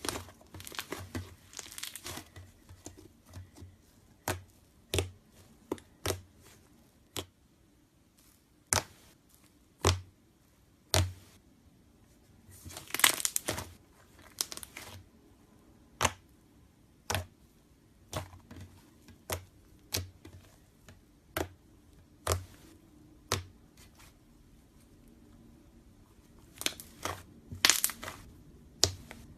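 Slime being squeezed and stretched by hand, giving sharp wet pops and clicks about once a second, with a few longer crackling, tearing stretches.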